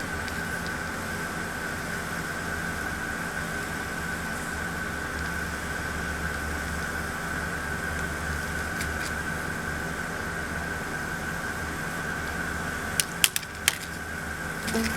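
A steady machine hum with a thin, unchanging high tone. A few sharp clicks come near the end.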